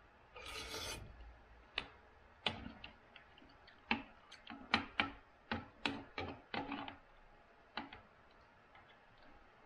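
A short slurp of soup, then a spoon clinking against a bowl in about fifteen light, irregular clicks as soup is spooned up.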